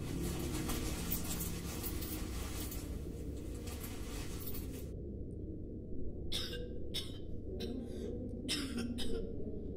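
Hospital-ward ambience: a steady low room hum, with a high hiss over it for the first five seconds that stops suddenly. In the second half come a run of short coughs, six or seven in about three seconds.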